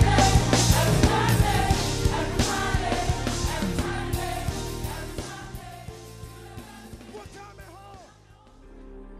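Live upbeat worship music: a band with a steady drum beat and voices singing. It fades steadily until only faint sound is left near the end.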